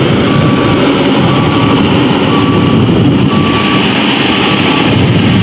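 L&T 1190 single-drum road roller running, its diesel engine making a loud, steady noise. Over it a beeper sounds short, even beeps about once a second.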